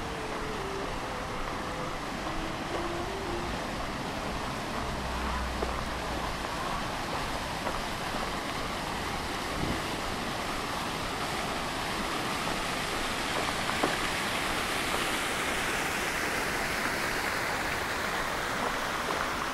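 Large tiered fountain splashing, a steady rush of falling water that grows louder and brighter in the last few seconds.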